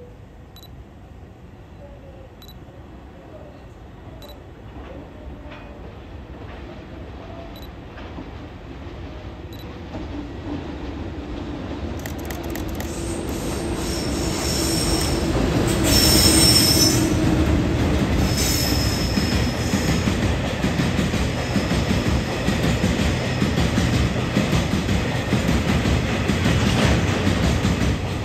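An EH500 electric freight locomotive and its string of tank wagons approach and pass. A rumble builds steadily over about fifteen seconds. High squealing tones come in around its loudest point. Then the wagons run by with a steady loud rumble.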